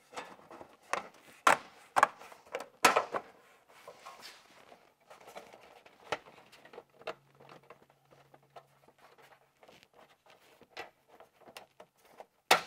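Sheet-metal window trim being fitted by hand against steel siding: scattered light clicks and taps of metal, with a few sharper knocks in the first three seconds and another near the end.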